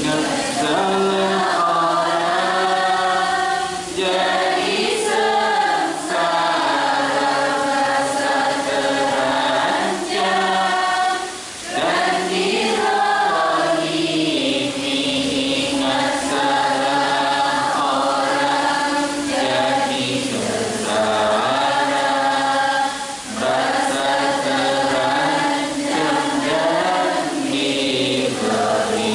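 A man chanting a devotional text into a microphone in long, drawn-out melodic phrases, with a few short breaks for breath.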